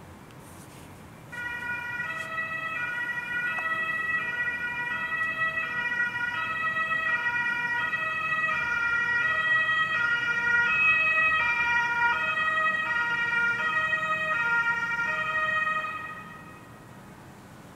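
German police car's two-tone siren (Martinshorn), alternating steadily between a high and a low pitch. It starts about a second in, grows louder towards the middle and stops shortly before the end.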